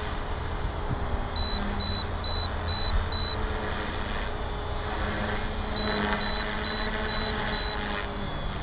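HK-450TT Pro electric RC helicopter flying overhead, its brushless motor and rotor blades humming steadily. Two runs of five short high beeps, about two a second, sound over it.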